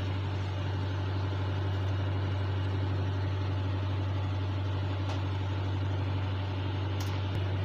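A pan of fish broth boiling hard on a stove: a steady low rumble with fine bubbling on top.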